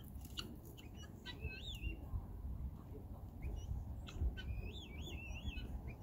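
A small songbird singing quick, warbling phrases, one short phrase about a second and a half in and a longer one from about four seconds to five and a half, with scattered short chirps between, over a low rumble.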